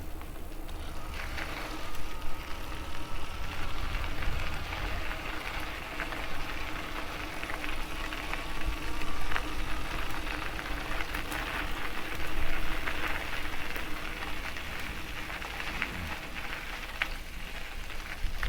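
Riding an e-bike on a trail: the tyres make a steady crackle on the surface, wind rumbles on the microphone, and a faint steady whine from the electric motor runs underneath.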